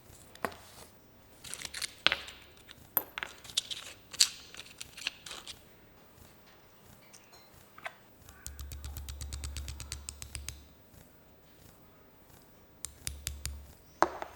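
Small machined steel parts of a hand vise clinking and tapping as they are handled and fitted together, a dozen or so sharp clicks. About halfway through comes a low hum with fast even ticking lasting about two seconds, and a shorter one near the end.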